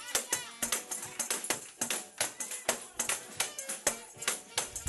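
Tambourine struck and jingled in a quick, uneven rhythm.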